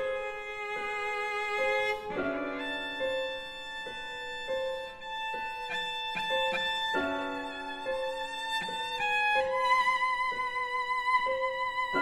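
Cello and piano playing classical music: the cello bows a sustained melody with vibrato, settling on a long held higher note about three-quarters of the way through, over a piano accompaniment of short repeated notes.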